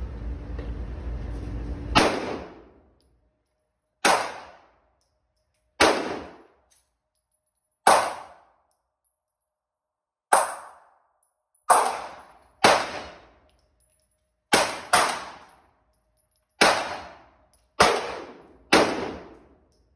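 Pistol shots on an indoor range: twelve single shots, spaced about one to two seconds apart with two fired close together in the middle, each a sharp crack that echoes off the range walls. A steady rushing noise comes before the first shot.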